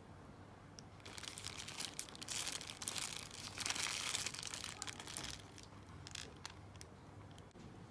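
Paper food wrapper crinkling and rustling as hands fold and handle a tortilla wrap in it, building up about a second in and loudest for a couple of seconds in the middle before dying down to a few faint ticks.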